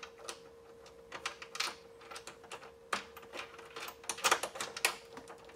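Irregular sharp clicks and taps of small metal hardware being handled while fitting a nut and bolt on a motorcycle lower-fairing mount, with a quicker cluster of clicks about four seconds in.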